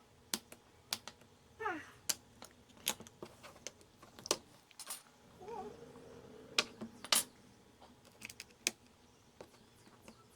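Irregular sharp clicks and taps of small tools and parts being handled on an electronics repair bench, with a couple of brief falling squeaks.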